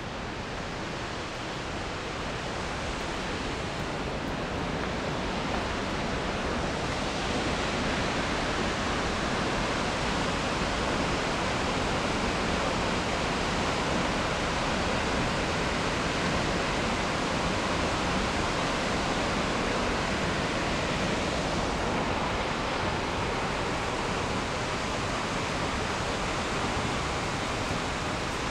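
Steady rushing of a waterfall, growing louder over the first several seconds and then holding even.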